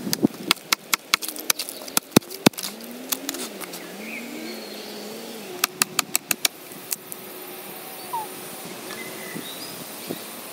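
Machete blows chopping into a felled tree trunk: a fast run of sharp strikes, about four a second, in the first couple of seconds, another quick run of about five strikes midway, then a few single blows. A faint, low, wavering call sounds in the background midway.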